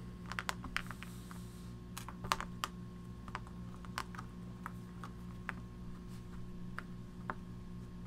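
Irregular light clicks and ticks of hands working braided Dyneema line tight around a marker pen, over a steady hum.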